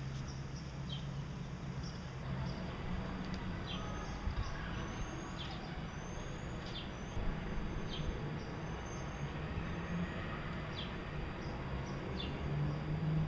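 Gouldian finches calling: short, high chirps, some falling and some rising, about once a second, over a steady low hum.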